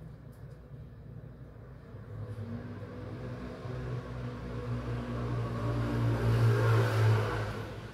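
A motor vehicle's engine passing by, a low steady hum that swells over several seconds and drops away near the end.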